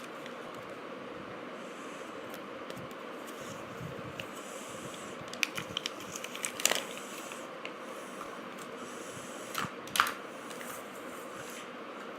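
Plastic packaging of a Kinder Joy egg being handled, giving short sharp clicks and crinkles: a cluster of clicks about five to seven seconds in and two more near ten seconds, over a steady hiss.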